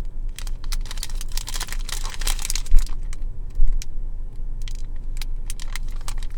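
Crinkly snack packaging handled close up: a run of sharp crackles and rustles, with two dull thumps about three seconds in.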